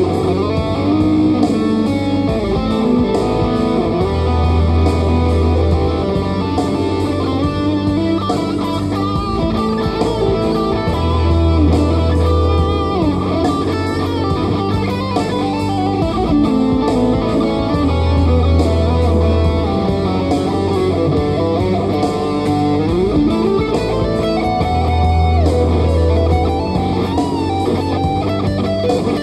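Ibanez AZ242BC electric guitar playing a melodic lead line with string bends, over a backing track whose deep bass note comes back about every seven seconds.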